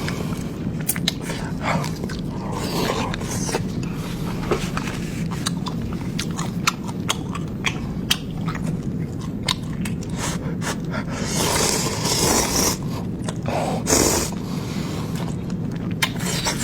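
A person eating close to the microphone: chewing and biting with many short wet smacks and clicks, with a couple of louder, longer rustling bursts past the middle.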